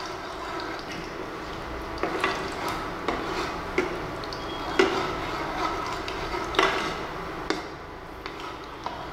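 Steel perforated skimmer ladle stirring whole spices (fennel seeds, cinnamon, cardamom, cloves) in hot oil in a nonstick kadai, with a steady sizzle of the spices frying. Irregular knocks and scrapes come as the ladle meets the pan, about nine times, the loudest near the middle.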